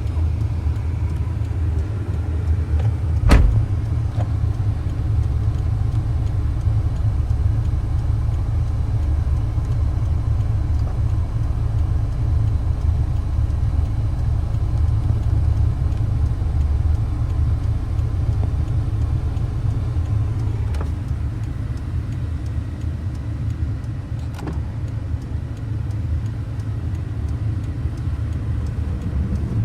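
Toyota Land Cruiser 71 Prado's 2.4-litre turbo-diesel engine running at a steady idle, a low even rumble, with one sharp knock about three seconds in.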